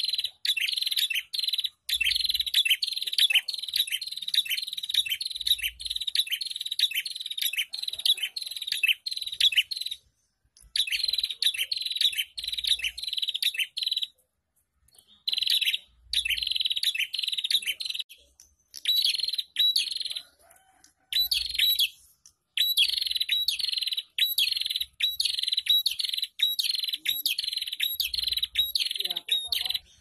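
Caged prenjak, a small long-tailed songbird, calling a fast run of sharp, high chirps, about three a second, breaking off briefly twice near the middle.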